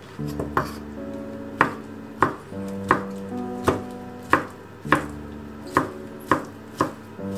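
Kitchen knife slicing chikuwa fish cake into rings on a bamboo cutting board: about ten sharp chops against the board, one roughly every two-thirds of a second.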